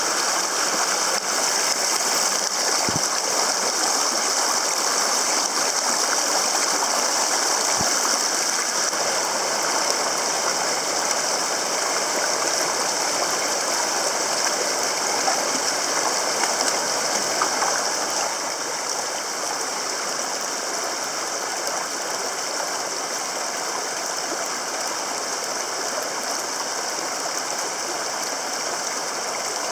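Water of a small mountain waterfall flowing and splashing over rocks: a steady rushing hiss that drops a little in level about two-thirds of the way through.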